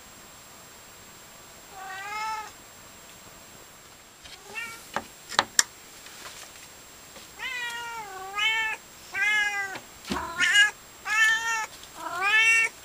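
Siamese cat meowing: one meow about two seconds in, then a run of six more from about seven seconds on. A few sharp clicks about halfway through.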